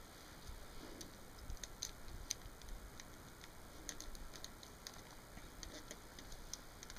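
Faint, irregular clicks and ticks of the plastic parts of a LEGO Hero Factory figure being handled and adjusted, in a few small clusters.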